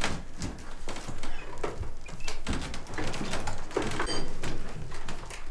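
Scattered knocks, clicks and scrapes of band gear being handled and set up, such as a stand being shifted on the floor, with a few short high tones about four seconds in.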